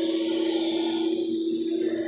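Electronic drone music: one steady held low tone under a hissy high layer that fades out about halfway through.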